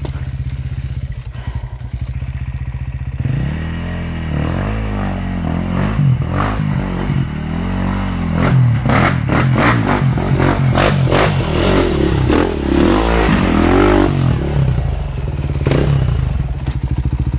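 Enduro dirt bike engine running steadily, then from about three seconds in revving up and down again and again as it climbs over rocks. Knocks and clatter of the tyres and bike striking stones come through the engine sound, heaviest in the later part.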